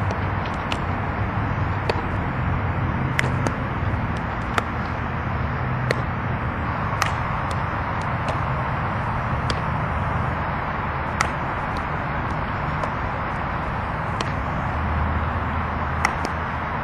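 Infield ground-ball practice on a softball field: sharp, short clicks about once a second or so as softballs are hit and fielded into a glove, over a steady outdoor rumble.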